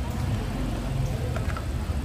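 Electric meat grinder's motor running with a steady low hum as meat is pushed down into its steel hopper, with a couple of light taps about a second and a half in.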